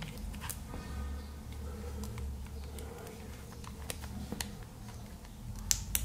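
A few faint, scattered clicks and taps from a Samsung Galaxy S23 Ultra being handled as its S Pen is pushed out of its slot.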